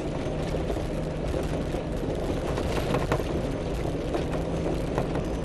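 Off-road vehicle driving along a rough dirt trail: steady engine and tyre noise with a few knocks and rattles from bumps.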